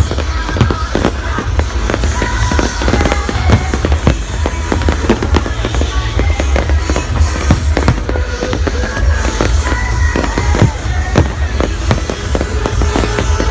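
Fireworks display: a steady barrage of bangs and crackling shells, with music playing under them.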